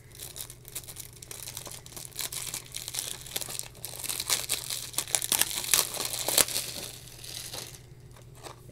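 Clear plastic shrink-wrap being peeled and torn off a Blu-ray case: a dense crinkling and crackling, loudest in the middle and dying away near the end.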